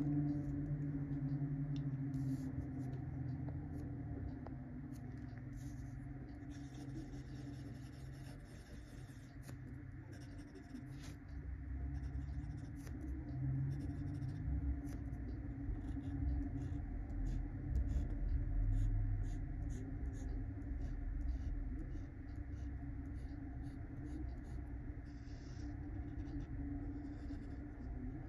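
Platinum 3776 Century fountain pen's 14-karat gold medium nib writing on lined paper: scratchy strokes of loops and short hatch lines, over a steady low hum.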